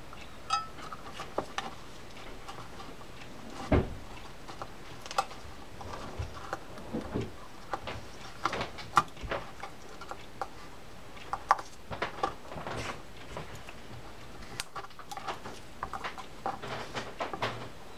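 Scattered light clicks and taps of small metal parts of a Shimano Corsair 400 fishing reel being handled during disassembly, with a louder knock about four seconds in.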